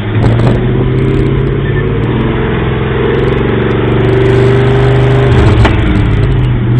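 Off-road 4x4 truck engine running steadily under load, heard from inside the cab, with a few light knocks and rattles from the truck over the trail.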